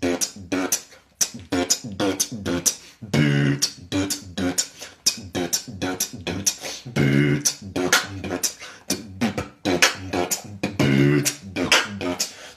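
Vocal beatboxing: a fast, steady rhythm of sharp mouth clicks and snare-like hits, with a long low bass tone that comes back about every four seconds.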